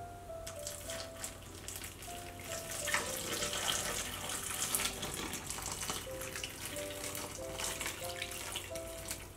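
Hot water poured from a pot into a glass bowl of whole fruit: a steady splashing stream, loudest a few seconds in. Soft background music plays along.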